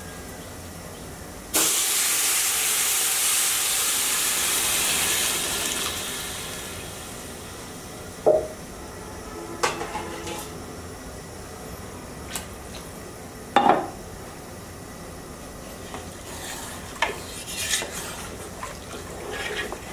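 Hot water poured into a pot of fried rice and hot oil, setting off a sudden loud sizzling hiss about a second and a half in that fades away over about five seconds. Afterwards a few sharp clinks and knocks of a utensil against the pot.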